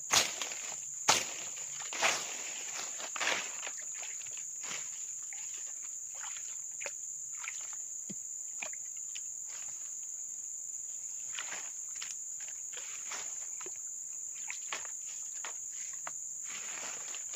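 Steady, high-pitched buzz of insects in the swamp forest throughout. Over it come several sharp knocks in the first three seconds, then quieter rustling and scraping as leaf litter and mud are cleared by hand from a waterlogged hole.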